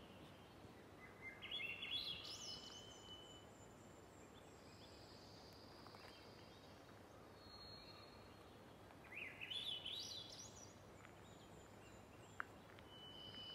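Faint birdsong in a quiet forest: two short phrases whose notes climb quickly in pitch, about a second in and again about nine seconds in, with a long steady high whistle between them.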